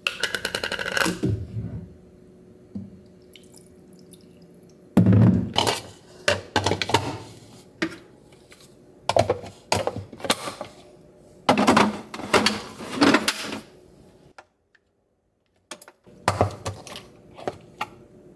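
Kitchen handling sounds: plastic containers and lids knocked and set down on a countertop in several separate bursts, with water poured into a plastic pint container.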